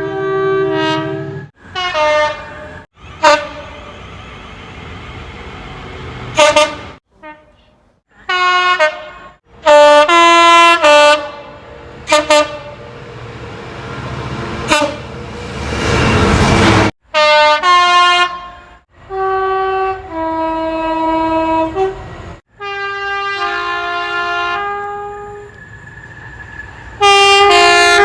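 British train horns sounding in a quick series of separate clips cut abruptly one after another, many blasts stepping between two notes. Near the middle the rush of a passing train swells up and cuts off.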